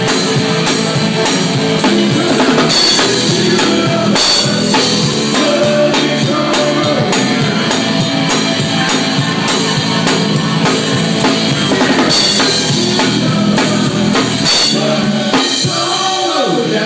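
Live band music led by a drum kit, with bass drum and snare hits throughout and a falling pitched sweep near the end.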